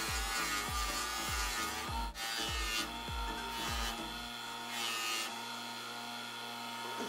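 Background music with a steady kick-drum beat and sustained tones; the drum drops out about four seconds in while the tones carry on.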